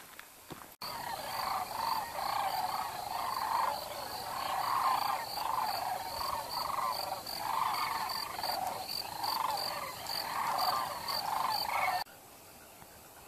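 Dense chorus of many wild animals calling together, overlapping and continuous, with a high note pulsing steadily above it. It starts abruptly about a second in and cuts off abruptly near the end.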